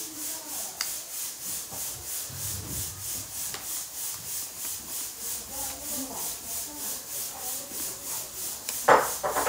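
A steady hiss that swells and fades about three times a second, with a short sharp sound near the end.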